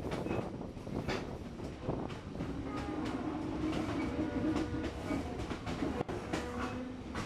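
A train running on rails, a steady rumble with clicks from the wheels passing over rail joints. About two and a half seconds in, a steady low tone joins it.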